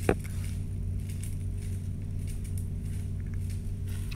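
Steady low mechanical hum, with one sharp click just after the start.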